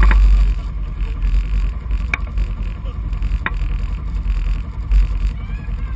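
ATV engine idling at a standstill, settling from a louder run to a steady low rumble about half a second in. Two sharp clicks come in the middle, and a brief thump near the end.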